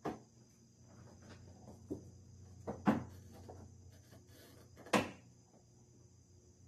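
A handful of sharp plastic clicks and knocks as trim clips and a rubber seal are worked loose under a car's hood, the loudest about three and five seconds in.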